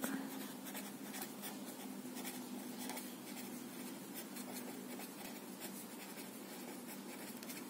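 Felt-tip marker writing on notepad paper: faint scratching of pen strokes, one after another, as words are written out.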